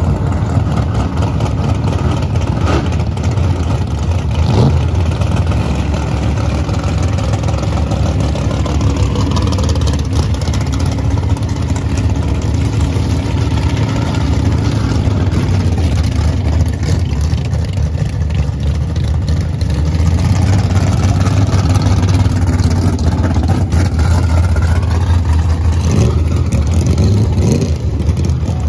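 Drag-race V8 engines idling, low and steady: the Dodge Dakota drag truck's 451 stroker big-block Mopar V8 and a second drag car's engine. Near the end the pitch rises briefly, like an engine being revved.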